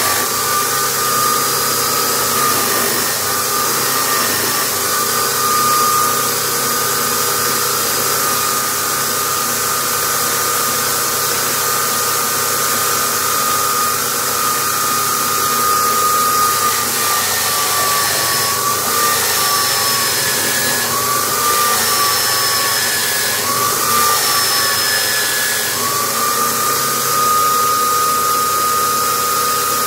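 Electric drill driving a sanding disc, its motor running steadily with a high whine. The whine's pitch wavers and dips several times about two-thirds of the way through, then steadies again.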